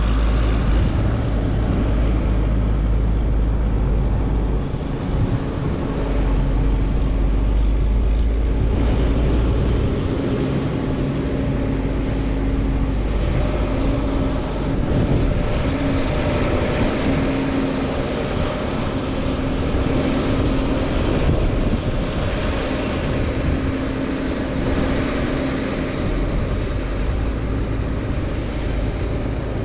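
Heavy diesel farm machinery running steadily under load, with a deep rumble and a steady whine that comes and goes.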